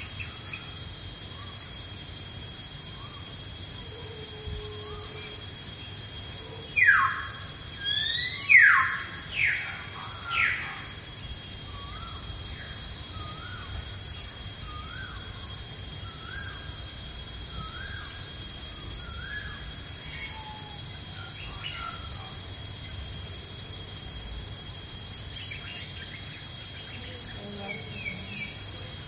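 Steady high-pitched insect chorus, like crickets trilling, with birds calling over it: a few quick descending whistles about a quarter of the way in, then a run of short repeated chirps, and faint calls again near the end.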